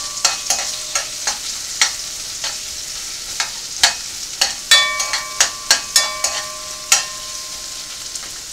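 Food sizzling in a frying pan, with a metal utensil clinking and scraping against the pan in quick, irregular strokes; a few clinks ring on briefly like struck metal.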